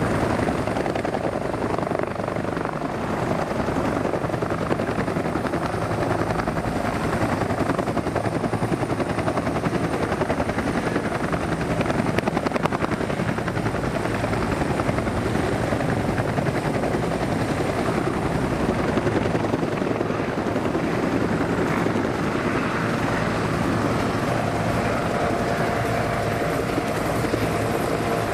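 Military helicopters flying in formation, their rotor blades beating steadily and continuously. A steady turbine whine comes up near the end.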